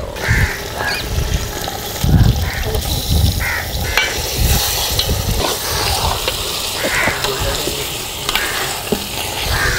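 Raw mutton pieces going into hot oil with browned onions and ginger-garlic paste, sizzling and frying, while a steel ladle scrapes and stirs in the pot with repeated knocks.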